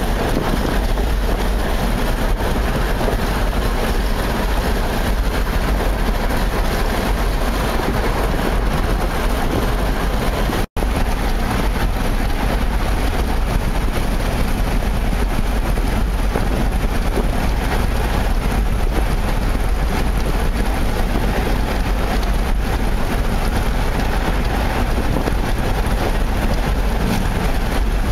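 Steady road and wind noise of a car driving at highway speed, heard from inside the cabin. The sound cuts out for an instant about eleven seconds in.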